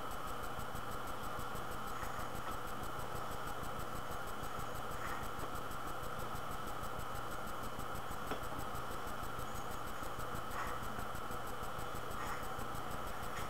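Steady hiss with a faint hum and a thin high whine, the recording's own background noise in a quiet room, broken by a few faint soft ticks.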